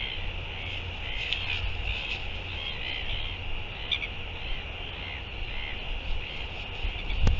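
Gulls calling over and over in short harsh cries, thinning out after the first half, over the low rumble of wind on the microphone. A single sharp knock near the end.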